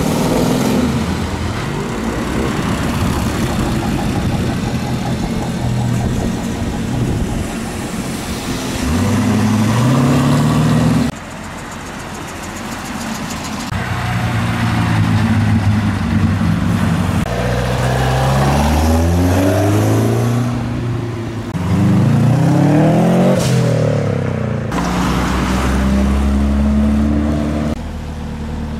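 Several cars driving away one after another, heard in short clips that change abruptly: each engine accelerates past, its pitch rising and falling through revs and gear changes.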